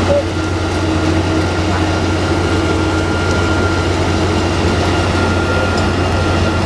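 Plasser & Theurer Unomatic 09-16 CSM track tamping machine running, a steady low engine drone with a thin steady whine above it.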